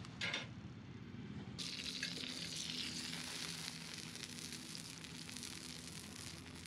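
Sausages sizzling in a small pan over a campfire, starting about one and a half seconds in, with the fire crackling under them.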